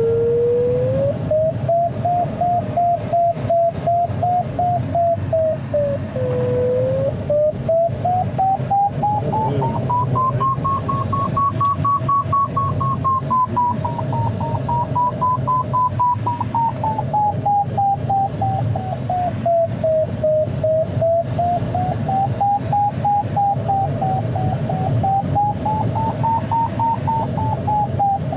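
Audio variometer in an ASK 21 glider beeping rapidly, its pitch rising and falling slowly over several seconds as the climb rate strengthens and weakens in lift. Beneath it is a steady rush of airflow in the cockpit.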